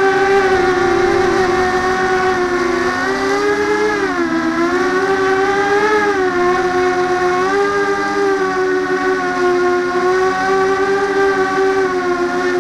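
Brushless motors and propellers of an x210 FPV racing quadcopter whining in flight, recorded on board. The pitch drops and rises with the throttle a few seconds in and again briefly, then holds steady.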